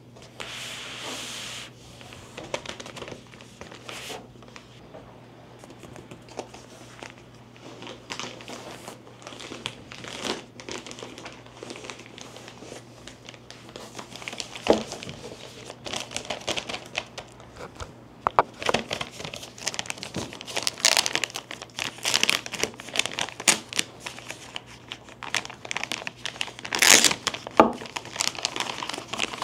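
Packaging being handled and unwrapped: plastic wrapping crinkling and rustling, with scattered clicks and taps. It grows busier and louder in the second half.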